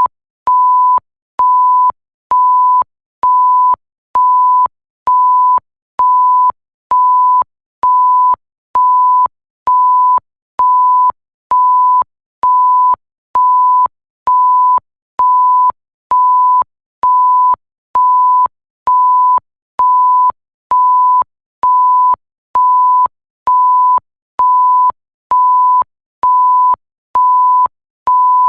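Electronic pure-tone bleep repeating evenly, a little faster than once a second, each beep about half a second long with a faint click as it switches on and off.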